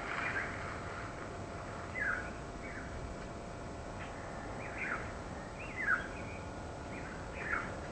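A bird calling in a series of short, downward-sliding chirps, about one a second, starting about two seconds in, over a steady background hush of breeze.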